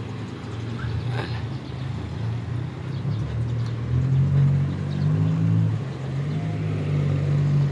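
Street traffic: motor vehicle engines running close by, a steady low hum that grows louder about four seconds in.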